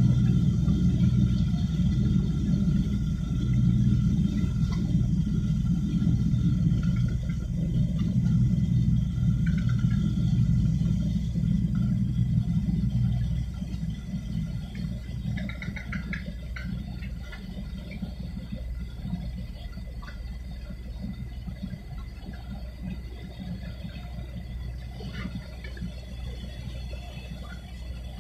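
Low, steady rumble of a ship's diesel engine with its propeller working, loud at first and easing off about thirteen seconds in.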